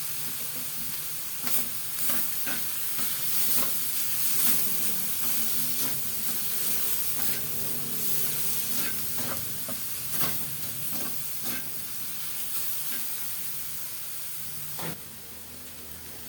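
Ground pork with garlic and onions frying in oil and soy sauce, sizzling steadily while a utensil stirs it, scraping and tapping against the pan every second or so.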